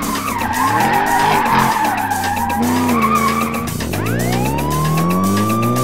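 Car sound effects: tyres screeching for the first three and a half seconds or so over a revving engine, then the engine revs up in a long rise in pitch.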